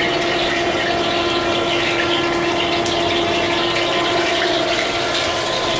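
Commercial gas wok range running in a restaurant kitchen: a steady rushing noise with a constant hum.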